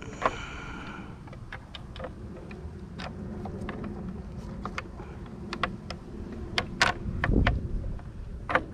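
Hard plastic clicks and knocks as an aftermarket snorkel intake piece is handled and fitted into the car's front-end plastics, with a short squeak near the start and a low thump a little after seven seconds in.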